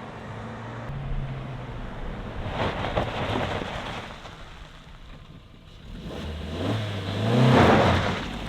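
Stock Suzuki Jimny JB74's 1.5-litre four-cylinder engine on its factory exhaust, driving by and accelerating. The engine note rises and is loudest about seven and a half seconds in, then eases off.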